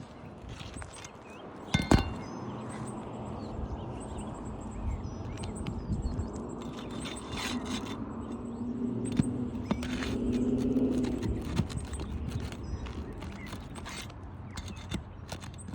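Roofing nails being pried and pulled out of old asphalt shingles: scraping and small clicks of a pry tool against shingles and nails, with one sharp knock about two seconds in. The shingles are brittle and in poor condition, so the nails tear through them as they come out.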